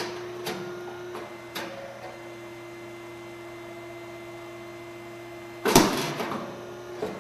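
SYP8501 rice cake popping machine with an 85 mm round mould, running through a pop cycle. A few mechanical clicks come first, then a steady hum while the mould holds the heated grain. About five and a half seconds in there is a loud sudden pop and a short hiss of steam as the mould opens and the grain puffs into a rice cake, followed by a single click.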